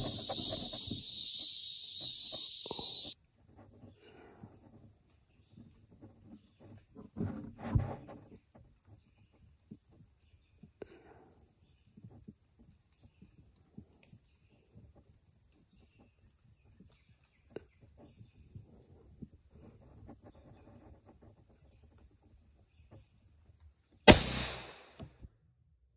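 Steady high-pitched insect chorus, loud for the first three seconds and then changing abruptly to a quieter, narrower drone. Scattered light knocks and rustles sound over it, with a thump about eight seconds in and a loud burst near the end.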